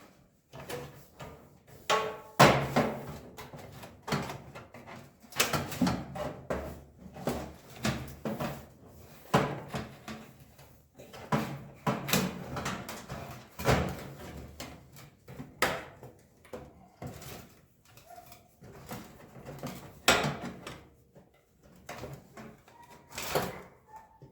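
Toaster oven's sheet-metal shell and parts handled and fitted together, giving irregular knocks, rattles and scrapes.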